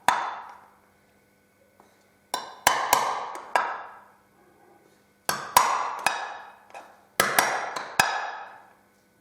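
Small tin can struck over and over with a nail or similar point to punch holes in it: about a dozen sharp metallic strikes in clusters of two to four, each ringing out briefly.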